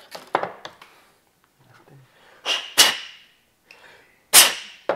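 Metal engine main bearing caps being set down one by one on a workbench, each making a sharp clack with a short metallic ring. There are a couple of lighter clicks at first, then four loud clacks in the second half.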